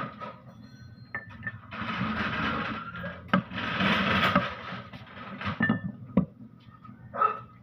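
Greasy metal parts of a Mitsubishi Canter truck gearbox being handled and pulled apart. There are a few sharp metal clinks and two rattling, scraping stretches of about a second each.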